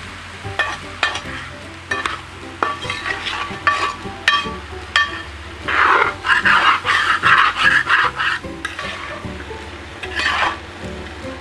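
Turkey pieces in masala being stirred in an uruli pot. The spoon scrapes and knocks against the metal while the meat sizzles, with scattered clicks at first, then a louder, denser run of scraping and sizzling past the middle and a short burst near the end.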